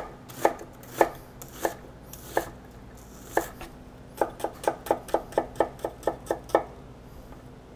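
Chef's knife chopping an onion on a wooden cutting board. First come slow, separate knocks of the blade on the board, then a quicker, even run of about four to five chops a second that stops a little before the end.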